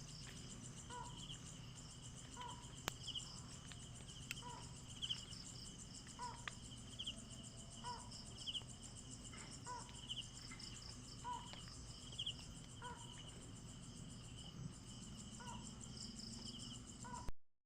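Night insects chirping, with a pulsed high trill and a short lower note each repeating about every one and a half seconds over a steady high chorus.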